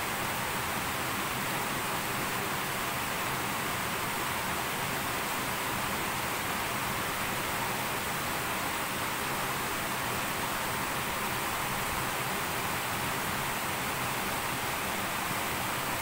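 Small waterfall cascades of a shallow stream pouring over low rock ledges: a steady, unbroken rush of splashing water.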